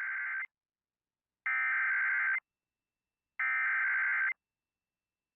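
Emergency Alert System SAME header data bursts: the end of one buzzy two-tone digital burst, then two more about a second apart, each a little under a second long, with silence between. These are the coded header that opens an EAS Tornado Warning activation.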